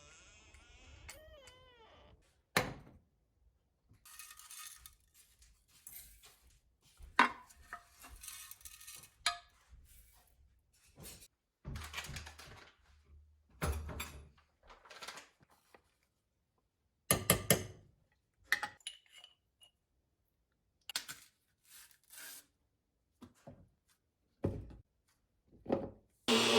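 Irregular knocks, thuds and clatter, a dozen or more separate hits with short quiet gaps between them, as of hard objects being picked up and set down.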